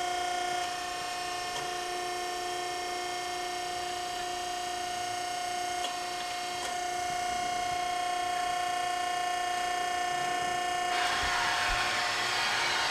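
A 17-ton hydra-mechanical press brake running with a steady, quiet hum while its ram cycles. Near the end a louder whirring rush comes in as the CNC back gauge travels to a new position.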